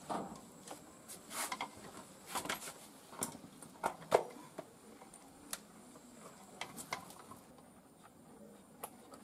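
A black plastic fibre-optic termination box being handled and pressed shut: scattered clicks and knocks of hard plastic, the sharpest about four seconds in, thinning out near the end.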